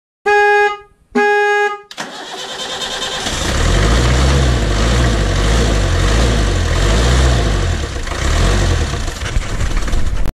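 Two short vehicle horn beeps, then an engine starts and runs with a heavy low rumble that rises and falls, cutting off suddenly near the end.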